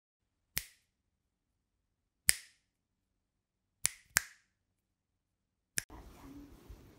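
Five sharp snaps over dead silence, spaced a second or two apart, with two close together about four seconds in. Faint room noise comes in just before the end.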